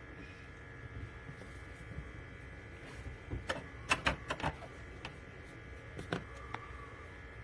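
Filament dryer's fans running with a steady low hum, with a quick cluster of sharp clicks and taps about three and a half to four and a half seconds in and one more click about six seconds in.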